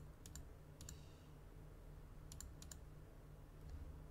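Faint computer mouse and keyboard clicks: a few short, sharp clicks in small clusters, a group near the start and a quick run of three around two and a half seconds in, over a low steady hum.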